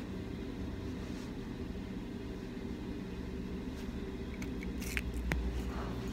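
Steady low background hum, with a few small clicks and taps about two thirds of the way in as an eyebrow pencil and its clear plastic cap are handled.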